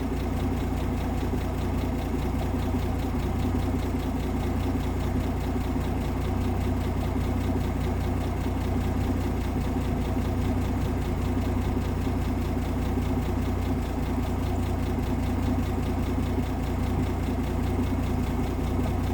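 1958 AMC Rambler Super's engine, fed by a Weber carburettor, idling steadily while the idle mixture is set for the highest steady vacuum reading.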